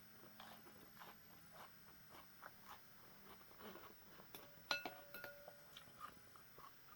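Faint eating sounds: soft chewing and small mouth noises over a bowl of noodle soup. About two-thirds through, an eating utensil clinks against the bowl with a short ring.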